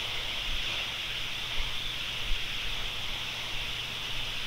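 Steady hiss with no other distinct sound, the even background noise of the recording.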